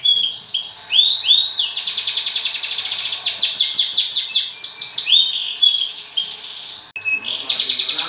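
Domestic canary singing almost without pause: long runs of very fast rolling trills mixed with short rising whistled notes, with a brief break about seven seconds in.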